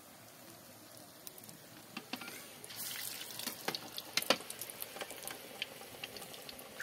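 Batter fritters deep-frying in a metal pan of hot oil: a sizzle with sharp crackling pops, loudest and busiest for a couple of seconds around the middle.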